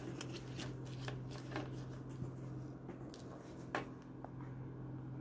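Plastic Darth Vader action figure being handled and laid on a wooden desk: scattered light clicks and taps, with one sharper knock about three-quarters of the way through, over a steady low hum.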